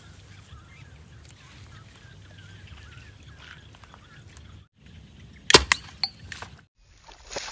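A homemade PVC-pipe slingshot air rifle fires once about five and a half seconds in with a single sharp crack, followed by a few smaller clicks. Before the shot, a steady open-field background with faint bird calls.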